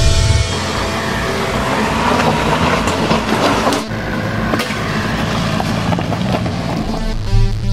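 Volkswagen Golf Variant Alltrack driving over a rocky gravel track: engine running, with tyre and stone noise. Music comes back in near the end.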